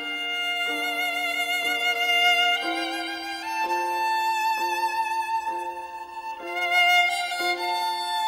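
Solo violin playing a slow melody in long held notes with vibrato, over a soft accompaniment whose lower notes change about once a second.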